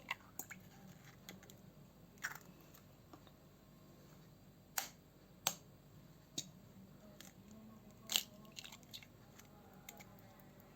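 Two eggs being cracked and emptied into a glass tumbler: scattered sharp taps and cracks of shell.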